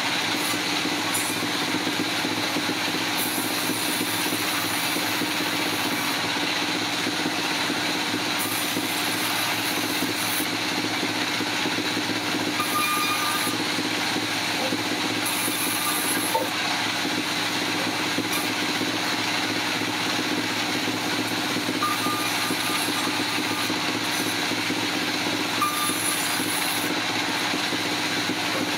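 Sawmill machinery running steadily, with a high hiss that comes and goes several times.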